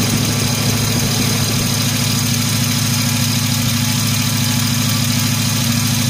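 Car engine idling steadily at operating temperature, an even, unchanging hum.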